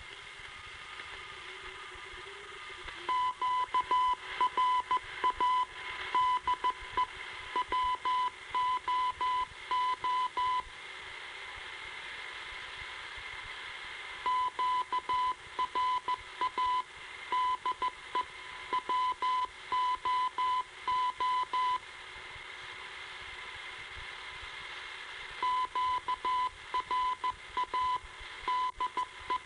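Morse code identification signal of AT&T high-seas radiotelephone station WOO, heard on a shortwave receiver: a 1 kHz tone keyed on and off over steady radio hiss, sent in three runs with pauses of a few seconds between. It is the ID the station played while a channel was idle, not in use for a phone call.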